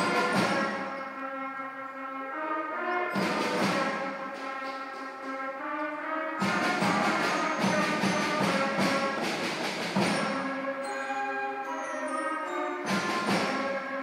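School concert band playing, brass to the fore, holding sustained chords broken by loud full-band accents about every three seconds, with a busier, denser passage in the middle.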